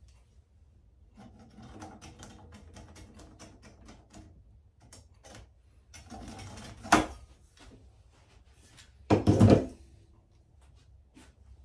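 Small wooden pieces of an end-grain cutting board layout being handled on a workbench: a run of light clicks and ticks from about a second in, a sharp knock about seven seconds in, and a louder wooden clatter about nine seconds in.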